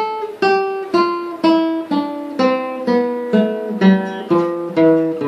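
Nylon-string classical guitar playing an A minor scale one note at a time, about two plucked notes a second, each left to ring into the next.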